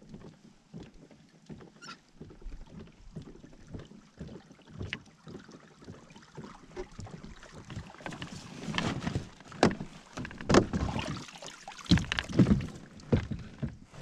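Paddling a Hobie kayak: water splashing and sloshing with irregular knocks and clunks against the hull, louder and more frequent in the second half.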